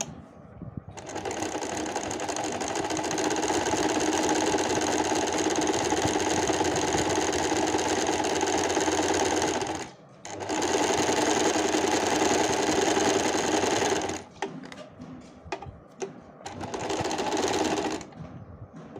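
Usha Stitch Magic automatic sewing machine sewing a dense zigzag embroidery stitch at its widest width and shortest length. It runs steadily, stops briefly about halfway, then runs again in shorter spurts and stops near the end.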